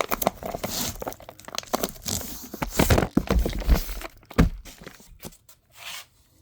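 Fireworks packaging being handled: plastic wrap and cardboard rustling and crinkling, with a few knocks and thumps as the cardboard cakes are moved about.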